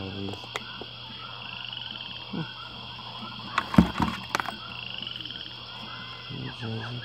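A chorus of short, rapidly repeated animal calls, heard by the tagger as croaking frogs, over a steady high hum. A quick cluster of sharp clicks and knocks comes about halfway through and is the loudest sound.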